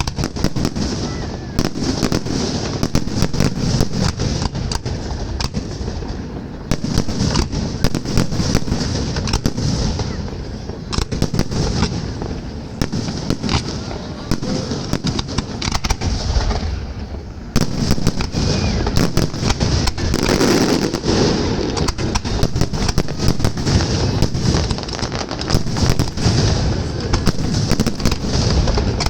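Fireworks salute: a dense, unbroken run of bangs and crackling bursts, with people's voices underneath.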